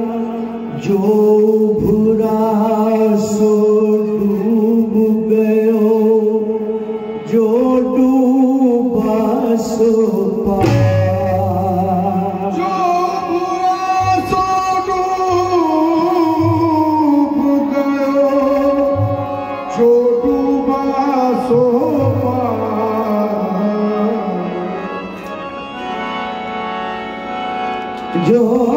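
Qawwali: a male lead voice sings long, held and gliding melodic lines over harmonium and tabla accompaniment.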